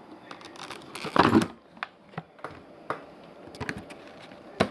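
Packaging being handled as the product is taken out of its box: scattered clicks and taps, a louder rustle about a second in, and a sharp click near the end.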